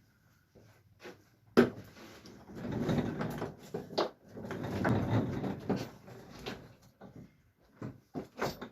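Handling noises: a sharp knock about one and a half seconds in, two stretches of sliding and rubbing, and a few lighter knocks, like a drawer or a hinged part being moved.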